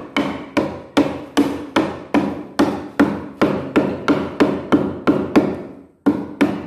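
Hammer driving nails into the edge of plywood boards: steady blows about two and a half a second, each ringing briefly through the board. There is a short pause near the end, then the blows start again.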